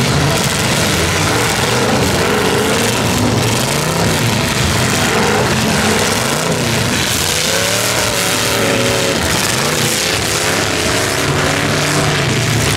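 Several demolition derby cars' engines revving together, each rising and falling in pitch, as the cars push and ram against one another.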